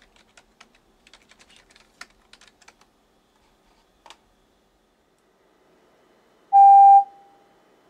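Computer keyboard typing in quick keystrokes, then a single key press, followed by a steady pure tone lasting about half a second: a computer-generated sound stimulus played to a mosquito in a hearing experiment.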